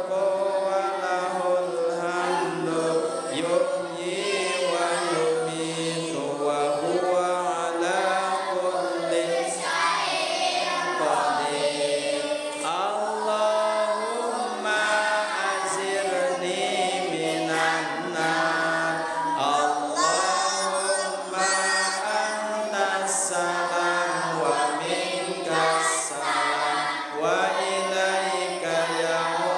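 Arabic dhikr chanted to a steady melody, one man's voice leading with several voices chanting along.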